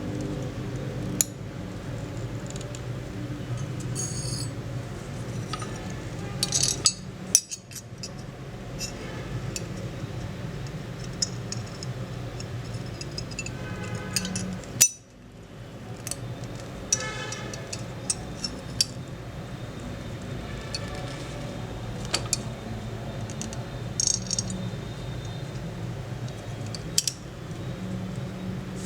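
Light metallic clicks and clinks of small steel parts being handled, some briefly ringing, over a steady low hum.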